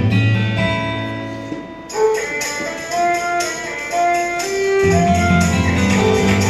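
Instrumental background music with sustained melodic notes. The bass drops out about a second and a half in and comes back near the end.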